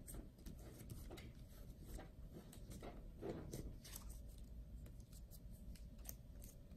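Faint rustling and crinkling of a small sheet of colored paper being folded and creased into a narrow strip by hand, with scattered light taps.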